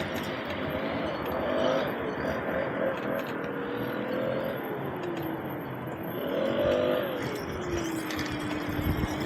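A motor whine over steady road and wind noise. Its pitch slides down, climbs and falls again, then settles into a steady lower tone near the end.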